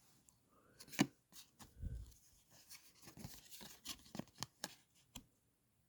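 Trading cards being handled and sorted by hand: a sharp tap about a second in, then a run of small clicks and rustles as cards are slid, flicked and set down, stopping a little after five seconds.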